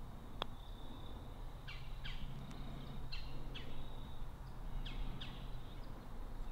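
Outdoor birdsong: a scatter of short, quick downward-sweeping chirps over a faint steady high tone. A single faint click about half a second in, the putter striking the golf ball.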